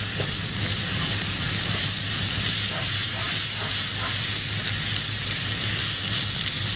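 Minced meat, onions and spices frying in hot oil in a wok, a steady sizzle, with a spatula stirring through it and a few light ticks from the spatula about three to four seconds in. A low steady hum lies underneath.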